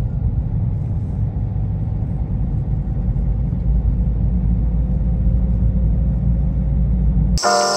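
Car driving along a road: a steady low rumble of engine and tyre noise. It cuts off abruptly near the end.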